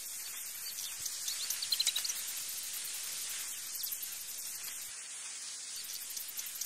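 Steady high-pitched insect trilling, with a few short bird chirps now and then.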